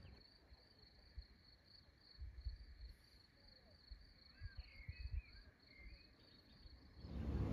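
Faint, steady high-pitched insect trill in even, regular pulses, with a few short bird chirps around the middle and some low thumps.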